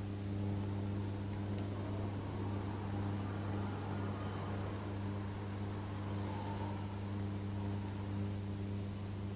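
Steady low electrical hum with its overtones under a constant hiss: the background noise of an old TV film soundtrack.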